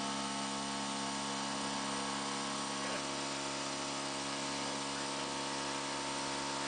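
CNC mill spindle running steadily, slowly feeding a twist drill down through a board: a steady whine over an even hiss. A brief click about three seconds in.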